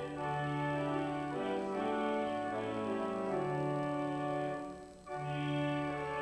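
Organ playing slow, sustained chords, with a brief break between phrases about five seconds in.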